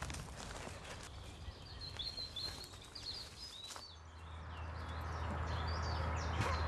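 Songbirds singing outdoors, many short chirps and whistles. About four seconds in, a low steady hum comes in and grows louder under the birdsong.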